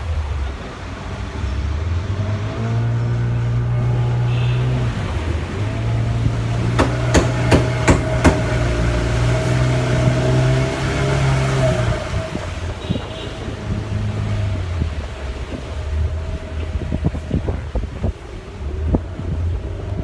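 Motorboat engine running steadily under way, with wind buffeting the microphone. A quick run of sharp knocks comes about seven to eight seconds in.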